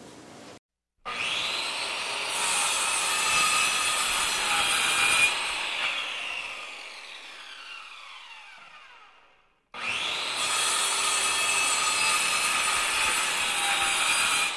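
A woodworking power tool starts up and cuts into wood for several seconds, then winds down with a falling whine. A second run starts abruptly near the end and is cut off.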